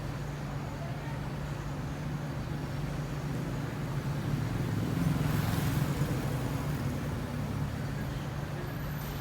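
Motorcycle engine running with a steady low hum, which swells louder for about a second around five seconds in.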